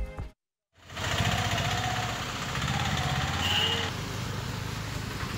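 After a moment of silence, the small engines of auto-rickshaws and motorbikes run steadily as they drive through a flooded street.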